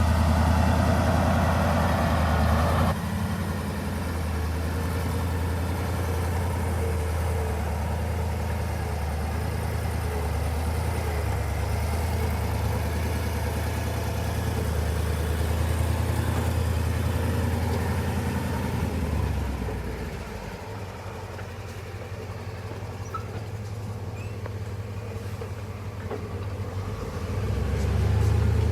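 Heavy diesel engine running steadily, fading down about twenty seconds in and growing louder again near the end.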